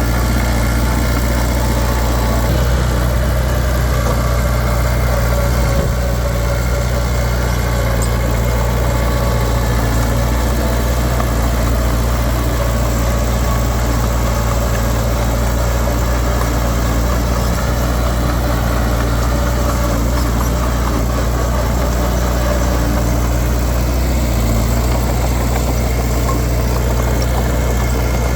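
Heavy diesel engine of earthmoving machinery running at a steady speed, a low, even hum with no revving.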